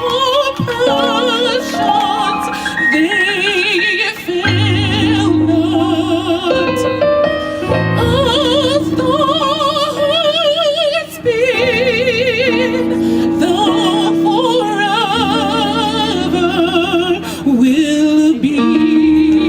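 Gospel choir singing a slow song with strong vibrato over sustained keyboard chords.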